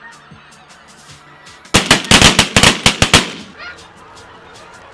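A quick volley of about ten shotgun blasts from several hunters firing together over about a second and a half at a snow goose passing overhead. Snow goose calls are heard faintly before and after the shots.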